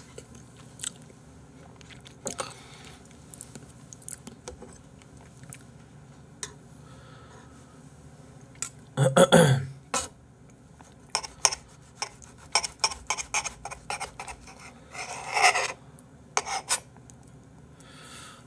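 Fork and knife clicking and scraping against a plate while cutting salmon, with chewing between strokes. The clicks come thickest in the second half, and a short vocal sound about nine seconds in is the loudest moment.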